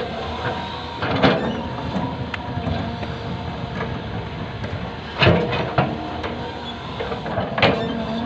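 Excavator's diesel engine running steadily while it works, with a few loud knocks, about four, spread through.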